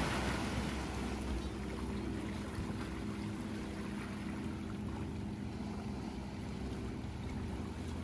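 Steady outdoor wash of wind and small waves lapping against shoreline rocks, with a faint low hum underneath.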